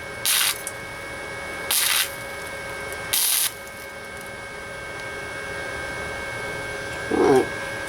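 Flux-core wire welder laying short tack welds: three brief hissing, crackling bursts of about a third of a second each, roughly a second and a half apart, over a steady high whine. A short low sound comes near the end.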